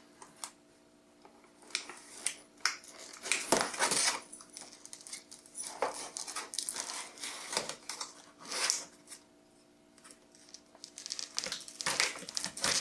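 Stiff plastic packaging being pried and worked open by hand: irregular crackles, creaks and clicks, with short pauses between bouts.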